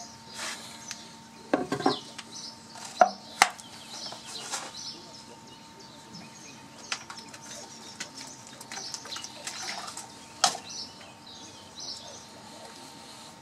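Workshop handling sounds of a rag wiping paint into an engraved wooden baseball bat: several sharp knocks as the bat and a plastic water bottle are handled and set down on a wooden workbench, the loudest about three and a half seconds in and again near ten and a half seconds. Small birds chirp faintly throughout over a faint steady hum.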